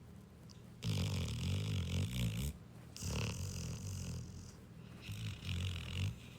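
Dog snoring: two long, rattling snoring breaths, the first starting about a second in and the second about three seconds in.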